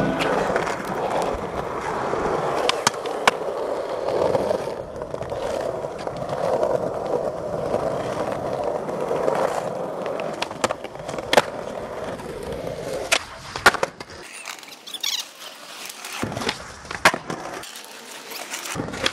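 Skateboard wheels rolling over concrete in a steady grinding rumble, with sharp clacks of the board striking the ground scattered through. The rolling fades about two thirds of the way in, and the clacks come more often near the end.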